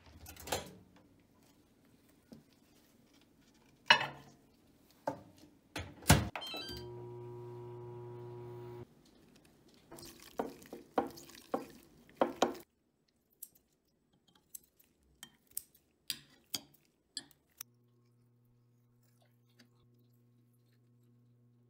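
Kitchen handling sounds: clicks, knocks and clinks of an oven door and glass food containers, with a steady appliance hum for about two seconds near the middle and again through the last few seconds.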